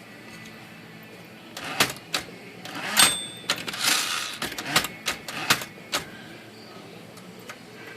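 Smith Corona Classic 12 typewriter's tabulator being worked: a string of sharp mechanical clicks and clacks. About three seconds in, a click is followed by a short ringing tone and a brief rush of movement. This is a test of the tab set lever after it was bent back into shape.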